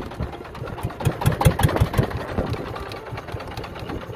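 Small boat engine running at low revs with an even thudding, about six or seven beats a second.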